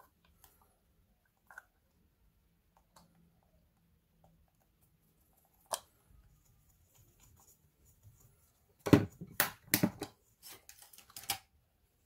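Close handling noises: a single sharp click about six seconds in, then a burst of loud, short scratchy rasps and knocks between about nine and eleven seconds in.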